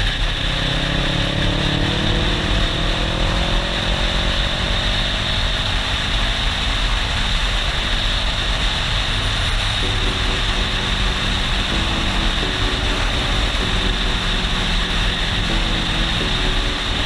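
Motorcycle engine heard from a helmet camera while riding, under steady wind rush on the microphone. The engine note climbs slowly over the first several seconds as the bike gathers speed, then holds steady at cruising speed.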